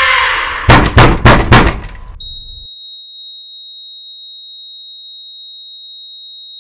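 Four loud bangs about a third of a second apart, then a steady high-pitched electronic tone that holds on unchanged: a film sound-design sting.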